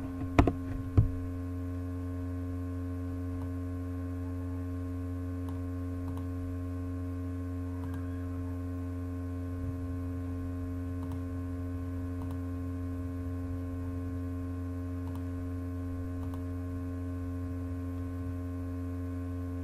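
Steady electrical mains hum, with two sharp clicks about half a second and a second in and a few faint clicks later.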